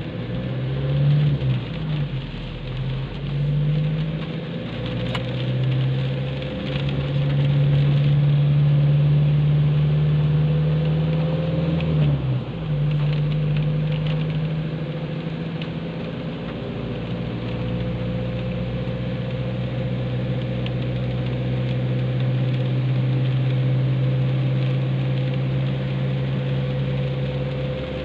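Car engine running steadily while driving on a wet road, heard from inside the cabin, with tyre and road noise underneath. The engine note drops and changes about twelve seconds in, then settles again.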